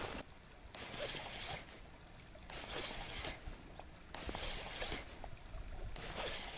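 A person walking, each step a soft swishing rush, about one every second and a half.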